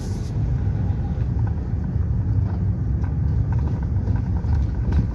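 A Mitsubishi eK Custom kei car running on the road, heard from inside the cabin: a steady low rumble of its 660 cc three-cylinder engine and tyres.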